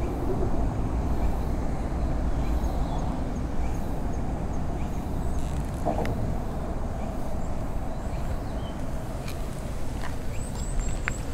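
Steady outdoor background rumble, with a few faint short high bird chirps, a quick run of four near the end.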